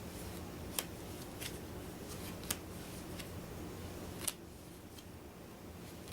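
Game cards being handled and laid down one after another: a few sharp card clicks and snaps, loudest about four seconds in, over a faint steady low hum.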